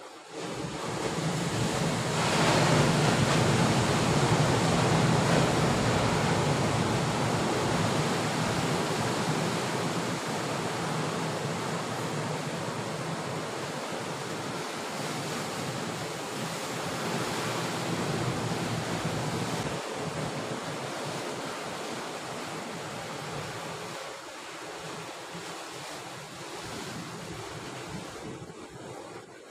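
Sea surf breaking and washing against a rocky shore: a continuous rush of water. It surges up a couple of seconds in, eases off, and swells again a little past the middle.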